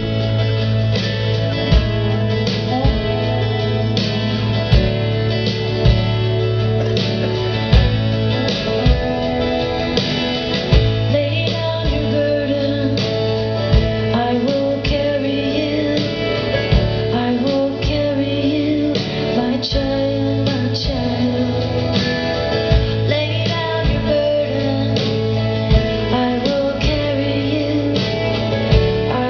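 Live band playing a slow song: strummed acoustic guitar, keyboards and a steady drum beat, with a woman singing over them.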